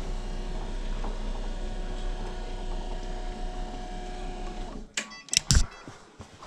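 Stairlift drive motor and gearbox running with a steady whine as the carriage travels on its rail, stopping suddenly about five seconds in. A few sharp clicks and knocks follow, louder than the motor.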